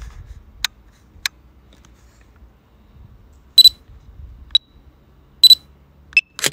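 Electronic beeps from the drone's controller and app. Two faint clicks come first, then a loud, high, quick double beep a few seconds in, a softer single beep, a second loud double beep and a short chirp, ending in a brief noisy burst.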